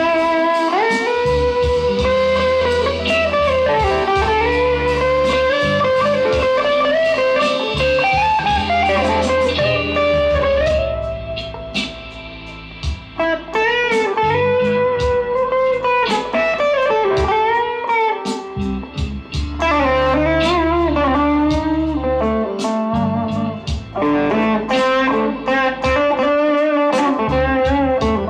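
Fender Player Stratocaster HSS Plus Top electric guitar playing bluesy lead lines with string bends, over a steady low bass part. It drops to a quieter passage about halfway through, then picks up again.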